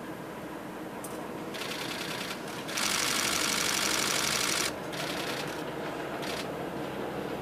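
Camera shutter firing in rapid bursts of continuous shooting close by: a short burst about a second and a half in, then a louder one lasting about two seconds. A low rumble from the excursion train crossing the steel truss bridge runs beneath.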